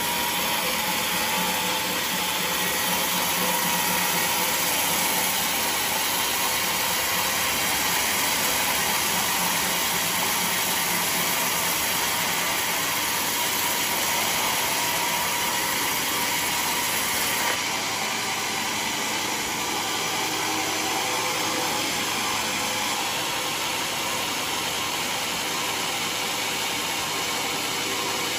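Sawmill saw running steadily through mahogany, a continuous loud mechanical noise. Its lower part drops slightly about two-thirds of the way through.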